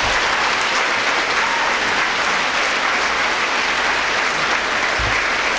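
Audience applauding steadily after a line in a speech.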